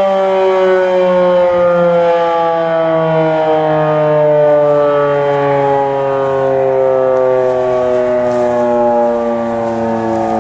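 Federal Signal outdoor warning sirens sounding, several tones at once sliding slowly down in pitch together in a long wail.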